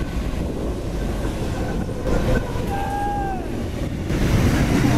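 Freight train led by diesel-electric locomotives passing close at speed: a steady heavy rumble of engines and wheels on the rails, with a brief falling squeal about three seconds in.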